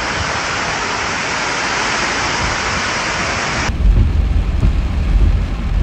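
Heavy rain pouring down in a steady hiss. About two-thirds of the way through it cuts abruptly to a different recording: a loud, uneven low rumble with lighter rain over it.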